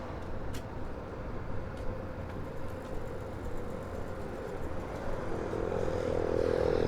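Street traffic hum on a city street. About five seconds in, a motor vehicle's engine draws near and grows louder. A couple of sharp clicks come early on.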